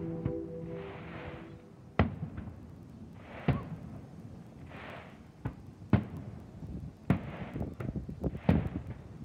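Aerial fireworks going off: sharp bangs every second or two, with short hissing or crackling bursts between them. A held musical chord fades out at the start.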